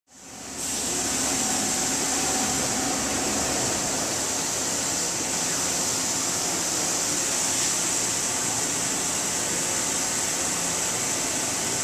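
A Park Fusion bridge saw's diamond blade cutting a miter in stone under a water spray: a steady, high, hissing cutting noise that fades in at the start and then holds even.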